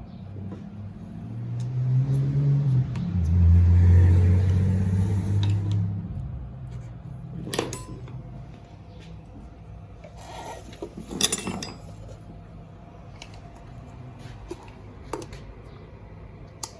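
Metal tire spoons clinking and scraping against the scooter's wheel rim as the old tire is levered off. A few sharp clinks come about halfway through. Before them, a loud low hum swells and fades over the first few seconds.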